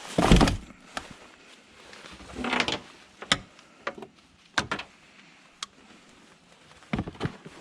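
Junk being shifted and pulled about by hand in a skip: a loud clatter at the start, a scrape a little after two seconds in, then scattered single knocks and clunks.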